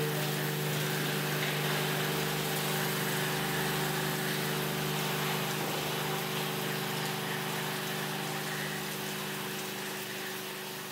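Resistance seam welding machine welding the longitudinal seam of a stainless steel drum: a steady electrical hum with an even, rain-like hissing crackle from the copper wheel electrode as it rolls along the seam.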